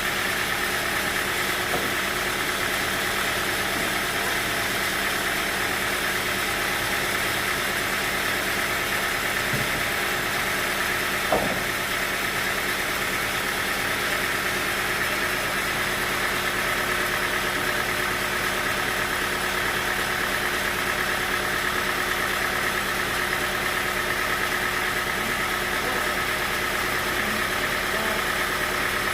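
Sawmill machinery running steadily without change in pitch, with a single brief knock about eleven seconds in.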